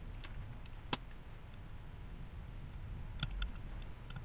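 A few small, sharp clicks of metal parts being handled on a JATCO JR403E transmission valve body: one sharp click about a second in and a pair just after three seconds, with fainter ticks near the start.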